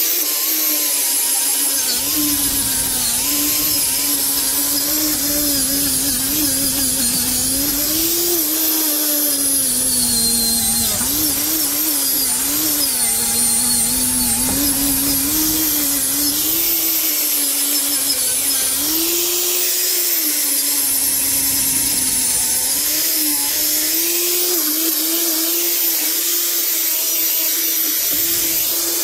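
Electric angle grinder running with an abrasive attachment, scouring rust and muck off an old metal trolley frame. The motor's pitch dips and rises over and over as the tool is pressed onto the metal and eased off, over a steady harsh hiss.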